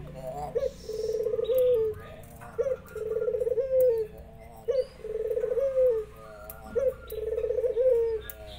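Puter dove cooing four times, about every two seconds: each call is a short note, then a rolling trill that ends in a held, slightly falling coo. Faint chirps from other birds sound in between.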